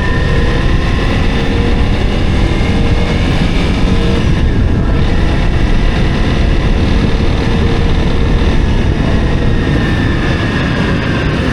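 Honda CRF300L Rally's single-cylinder engine running while being ridden, its pitch drifting slowly up and down, under heavy wind rush on the microphone.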